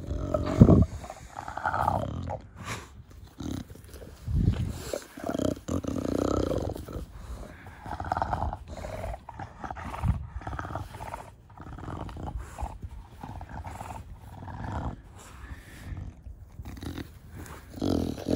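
An English bulldog's loud snorting, grunting breaths at close range, coming irregularly every second or two, the strongest just after the start. This is the noisy snuffling breathing typical of a short-nosed (brachycephalic) breed.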